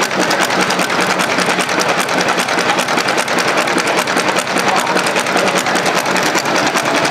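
Antique overhead-valve engine running steadily, its rocker arms and valve springs clattering in a fast, even rhythm.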